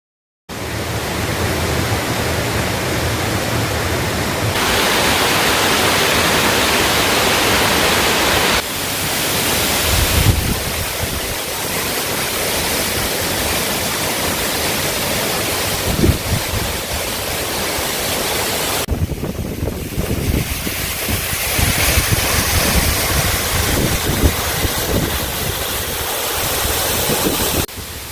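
Amida Falls waterfall: a steady rush of falling water. Its tone changes abruptly a few times, and low thumps of wind buffet the microphone now and then.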